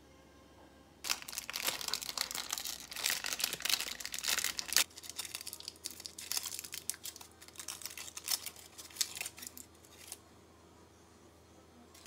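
Gold foil wrapper being crinkled and peeled off a round chocolate. It starts as a busy crackling about a second in, then thins to scattered crinkles that stop near the end.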